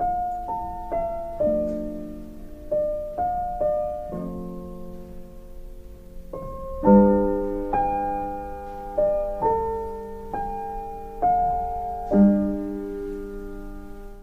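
Piano playing a slow melody of single notes, each struck and left to ring and fade, with fuller chords from about seven seconds in.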